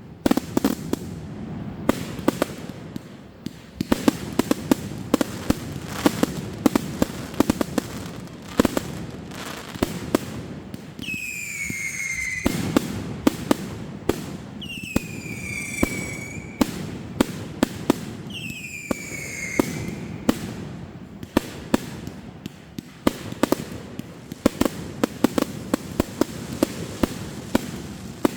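Fireworks going off: a dense run of bangs and crackling pops throughout. Three whistling fireworks a few seconds apart in the middle each give a falling whistle.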